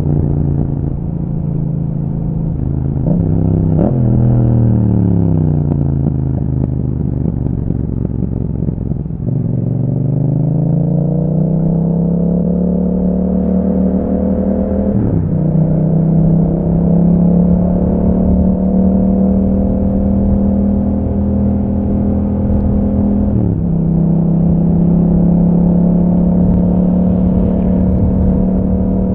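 Yamaha MT-07's 689 cc parallel-twin engine running through an Akrapovic exhaust while riding. It revs briefly and falls in pitch as the bike slows, then climbs in pitch under acceleration, with the pitch dropping suddenly at upshifts about halfway through and again near the end, and holding steady in between.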